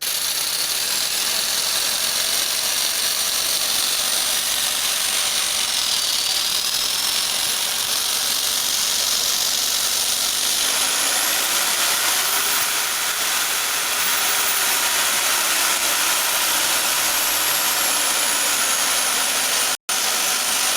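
Electric jigsaw running free with no cut, a steady motor and blade noise whose pitch shifts a few times as the speed dial is turned. It drops out for an instant near the end.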